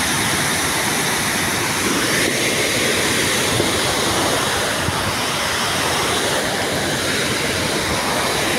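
Muddy floodwater rushing in a fast torrent, cascading over the broken edge of a washed-out road. It makes a steady, loud, unbroken rush of water.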